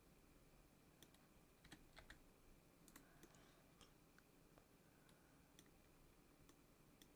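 Faint, irregular clicks of a computer keyboard and mouse, about a dozen scattered single clicks over a faint steady hum.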